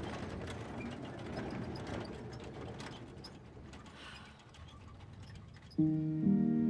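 Faint mechanical clicking and rattling over a soft hiss. Near the end, background music with held chords comes in.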